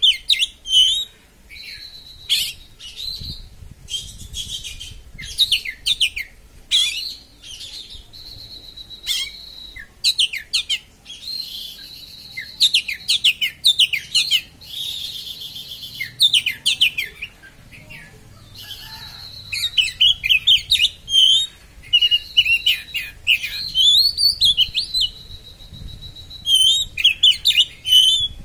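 Oriental magpie-robin (kacer) singing sharply in the fast, chattering 'konslet' style. Rapid runs of steep, sliding notes come in bursts of a few seconds, broken by held high whistles and short pauses.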